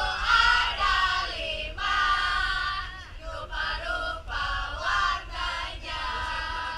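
A group of men and women chanting together in unison, in a string of short loud phrases.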